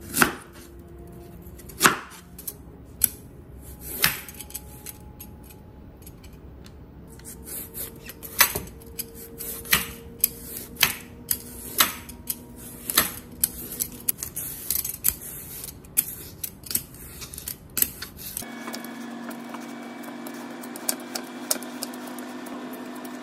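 A knife chopping through a raw carrot on a wooden cutting board, a few sharp chops in the first four seconds, then a metal julienne peeler scraping strips off the carrot in quick repeated strokes.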